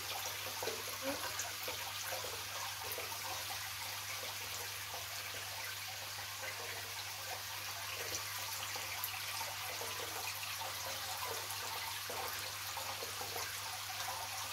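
Steady trickling and bubbling of aquarium water from the tank's aeration and filtration, over a low steady hum.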